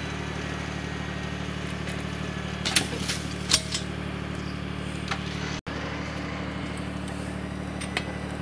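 John Deere 755 compact tractor's three-cylinder diesel running steadily under load, working a PTO log winch against a stump. A few sharp cracks come about three seconds in, the loudest sounds here.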